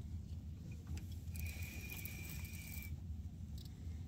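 Steady low rumble aboard a small fishing boat, with a thin, steady high whine held for about a second and a half midway.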